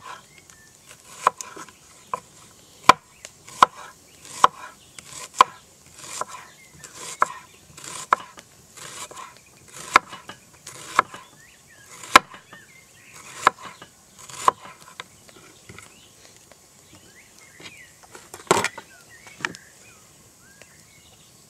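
Chef's knife slicing an onion on a wooden cutting board: sharp knocks of the blade striking the board, about one a second. The knocks stop about three-quarters of the way through, with one more knock a little later.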